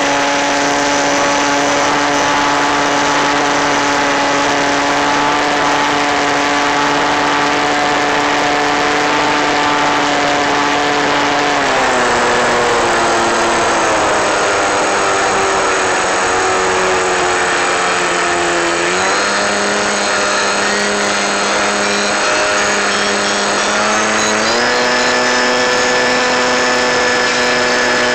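Onboard sound of an FPV model plane's electric motor and propeller: a steady whine that drops in pitch about twelve seconds in and sinks further, then steps back up around nineteen and twenty-four seconds in as the throttle changes.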